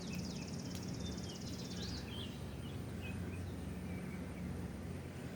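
Outdoor background: a high, even trill for about the first two seconds, then scattered short bird chirps, over a low steady hum.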